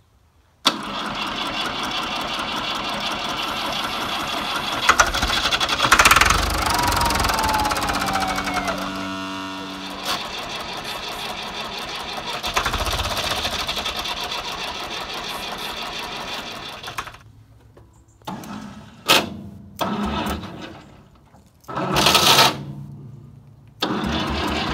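Fordson Super Power Major tractor engine being turned over on its starter motor on the first start attempt after five years standing unused. It starts suddenly and keeps going for about sixteen seconds, then comes in several short bursts near the end.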